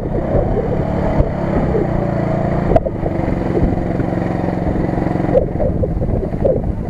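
CFMoto CF800-Z8 side-by-side buggy's engine running under load as the buggy churns through deep mud and water, its revs shifting a couple of times, with a sharp knock about three seconds in.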